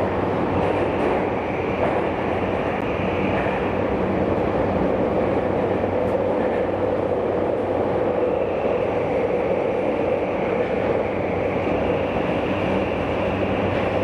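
Tokyu 5000 series electric train running steadily through a subway tunnel, heard from inside the passenger car: an even rumble of wheels on rail with a steady low hum.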